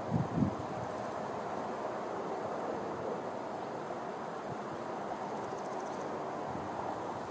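Insects trilling in a high chorus that swells and fades every second or two, over a steady rush of river water. A short gust of wind buffets the microphone right at the start.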